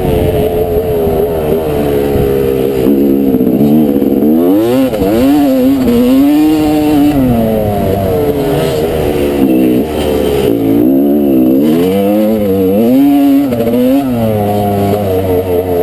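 1989 Honda CR250R's two-stroke single-cylinder engine, heard from the rider's helmet, revving up and down again and again as the throttle is opened and chopped through the corners and straights of a dirt motocross track.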